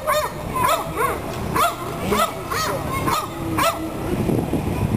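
Repeated short, high animal calls, each rising and falling in pitch, about two a second.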